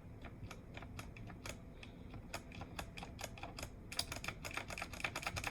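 Keys of a Redragon K630 60% mechanical keyboard being pressed one after another, clacking, with the presses coming much faster from about four seconds in.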